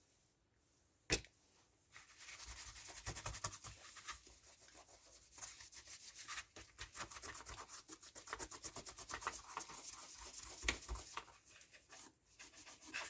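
Cloth rubbing briskly over a Stihl MS170 chainsaw to clean off grime, in many quick back-and-forth wiping strokes. One sharp knock comes about a second in.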